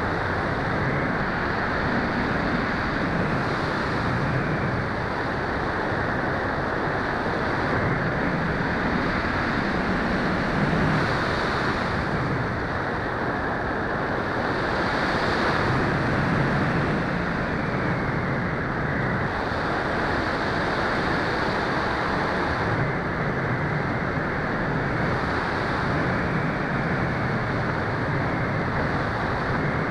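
Steady rush of wind over the onboard camera's microphone on an RC DG-1000 sailplane in flight, a dense, even noise that swells and eases slightly with the airflow.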